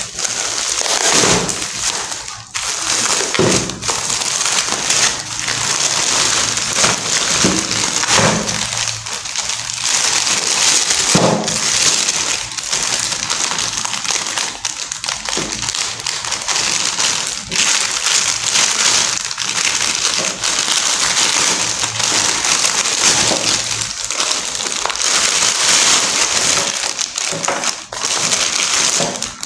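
Plastic shipping bags crinkling and rustling as they are handled, cut and pulled open, with scattered short crackles.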